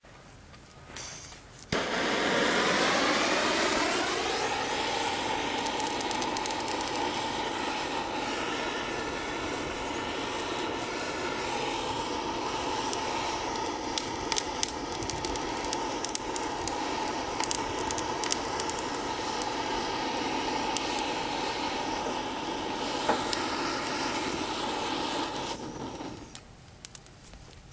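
Hand-held propane torch running steadily as it lights a homemade forge's fire, its pitch sliding down over the first couple of seconds and then holding, with scattered small crackles; it cuts off near the end.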